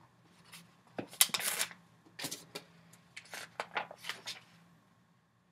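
Pages of a paperback picture book being flipped and handled: a run of short papery rustles and flaps, falling quiet near the end.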